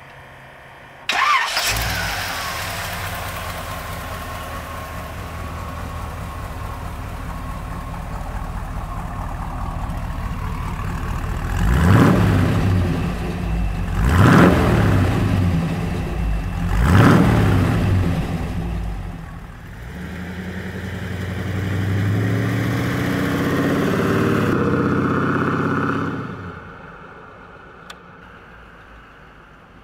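A 1956 Ford F100's 350 V8 starts about a second in and settles into a steady idle, then is revved three times, each rev rising and falling. The truck then pulls away under load, and the engine sound drops off a few seconds before the end.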